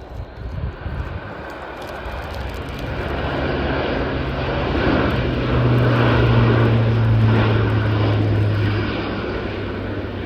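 Airbus A400M Atlas's four turboprop engines and propellers droning as the aircraft flies past. It grows louder over about six seconds, then eases off, and the propeller hum drops in pitch as it goes by.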